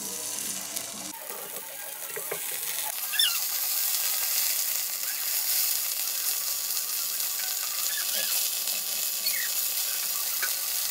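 A pat of butter sizzling as it melts in a hot frying pan, pushed about with a spatula. The sizzle builds over the first few seconds, then holds steady with small scattered pops.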